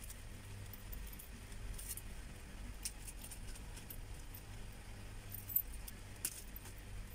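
Small metal earrings clinking and jingling faintly as they are handled and taken from a small plastic bag, with light plastic rustling and scattered tiny clicks, a couple of sharper ones near the end.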